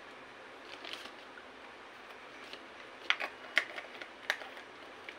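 Light clicks and taps from a plastic cosmetic cream jar being handled, a few faint ones about a second in and a quick run of sharper ones past the middle, over a faint steady hiss.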